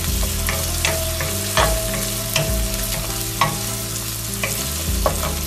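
Chopped onion and tomato sizzling in hot oil in a stainless steel kadai, being sautéed until the tomatoes soften. A wooden spatula scrapes and knocks against the pan about once a second as it stirs.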